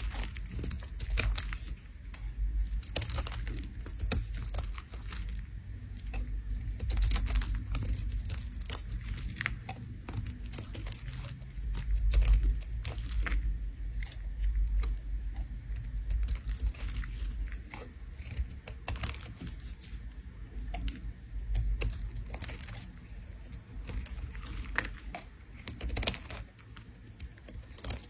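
A bar of soap being scraped, giving a dense, irregular run of crisp crunchy scrapes and crackles.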